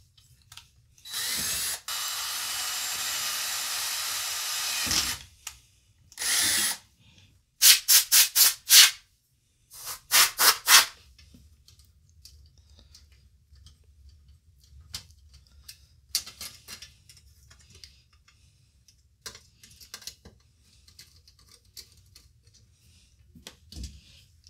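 Cordless drill running steadily as it bores through a sheet-metal computer chassis for about four seconds. Then come short, loud bursts from an aerosol spray can, five in a quick row and then four more, followed by faint scattered clicks of small screws and metal brackets being handled and fitted.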